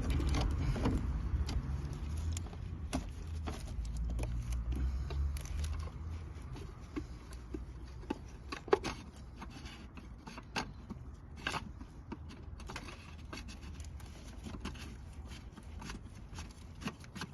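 Scattered small clicks, scrapes and knocks of hands and tools working on a car engine, as the oil filter housing is refitted. A low rumble underneath fades after about six seconds.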